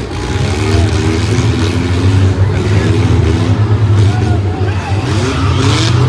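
Engines of demolition derby cars running and revving over a steady low rumble, their pitch rising and falling, with a brief hissing burst near the end.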